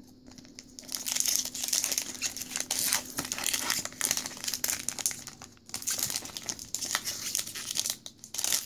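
Foil Pokémon trading-card booster pack wrapper being torn open roughly and crinkled in the hands, a dense crackling that starts about a second in, breaks off briefly past the middle, then goes on. The wrapper ends up badly torn.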